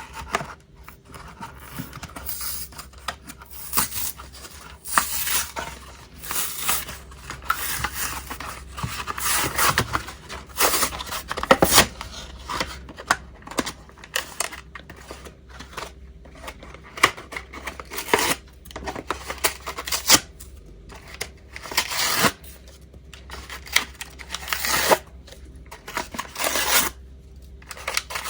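Toy microphone's packaging being opened and handled by hand: irregular rustles, scrapes and sharp clicks, some closely bunched, others spaced a second or more apart.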